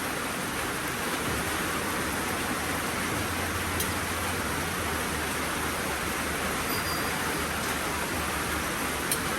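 Heavy rain falling steadily, an even hiss, with a low hum underneath from about a second in and a couple of faint clicks.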